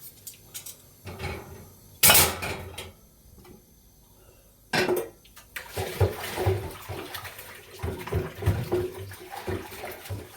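Dishes and cutlery being washed by hand in a sink: two loud rushes of water about two and five seconds in, then a steady run of clinking and clattering of plates and utensils.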